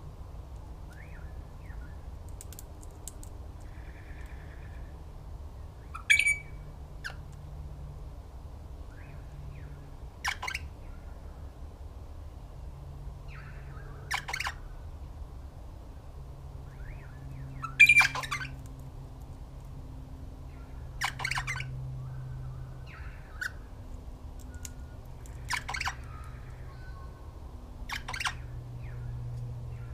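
Birds giving short, harsh squawking calls every few seconds, two of them much louder than the rest, over a steady low background rumble.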